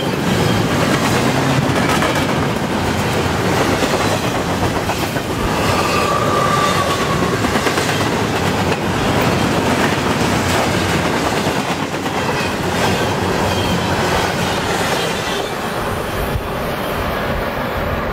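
Loaded double-stack well cars of a long intermodal freight train passing at speed, a steady rumble with the clickety-clack of wheels over the rail joints. Near the end the last car goes by and the noise starts to ease.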